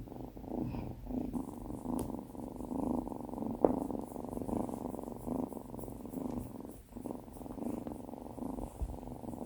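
Kitten purring close up, a steady pulsing rumble that swells and fades about once a second with its breathing. A sharp click sounds about a third of the way through.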